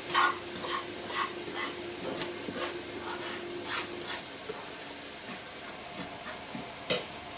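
Metal spatula scraping and stirring breadcrumbs toasting dry in a frying pan, about two strokes a second, then fainter and slower after about four seconds; the crumbs are browning nicely. A single sharp knock near the end.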